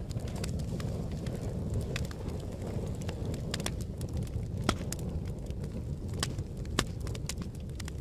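Wood campfire crackling: a low steady rumble of flames with irregular sharp pops and snaps, two of them louder in the second half.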